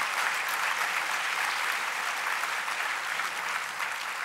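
Audience applauding: many hands clapping in a steady patter that eases off slightly near the end.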